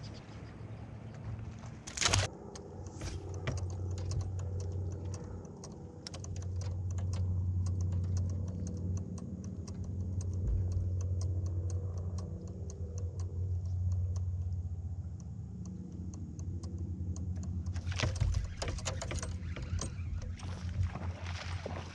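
Small rapid metallic ticking, like a fishing reel being cranked as line is retrieved, over a steady low hum. There is a sharp click about two seconds in and a burst of clatter near the end.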